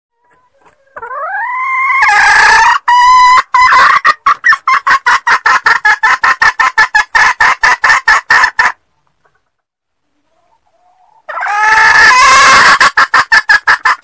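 Junglefowl hen calling, from a lure-call recording: a rising call about a second in swells into a long loud call that breaks into a fast run of clucks, about six a second, which stops about two-thirds through. Near the end a second rising call starts another run of clucks.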